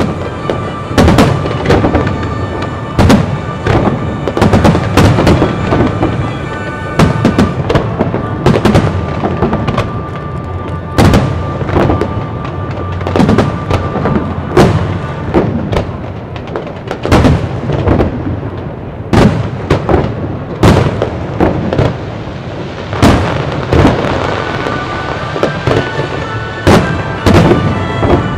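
Aerial firework shells bursting: dozens of loud bangs at irregular intervals, with the crackle and rumble of the bursts between them. Music plays steadily underneath.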